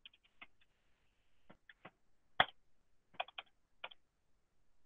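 Faint clicks of computer keyboard keys typing a password and pressing Enter: scattered single taps, with one sharper, louder keystroke about halfway through and a quick run of taps a little later.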